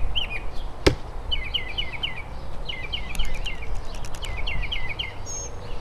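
A thrown knife strikes a wooden target round with one sharp knock about a second in. Birds chirp in quick repeated phrases over a steady low outdoor rumble.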